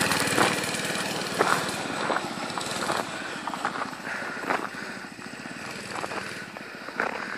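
A mini bike's small petrol engine running as the bike rides away, fading slowly.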